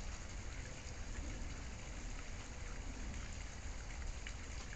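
Steady, even hiss with faint scattered ticks and a low rumble underneath, like rain.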